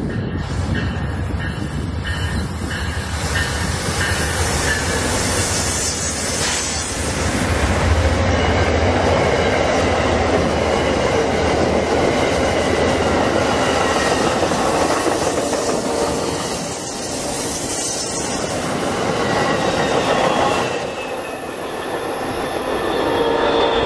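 Amtrak passenger train passing close by: steady loud rumble of wheels on rail with some clickety-clack, and a high wheel squeal that rings out for a couple of seconds near the end.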